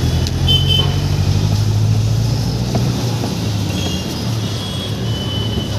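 A motor vehicle engine running close by: a steady low rumble that eases a little about halfway through.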